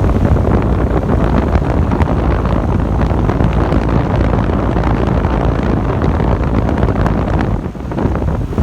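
Two outdoor heat pump units, an Amastar and a Goodman, running together in cooling mode: condenser fans and compressors making a loud, steady rush of air over a low hum, with air buffeting the microphone.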